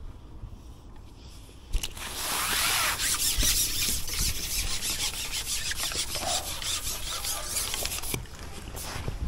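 Carbon fishing pole being slid along, a rasping rub with quick ticks and scrapes that starts suddenly about two seconds in and stops about two-thirds of the way through.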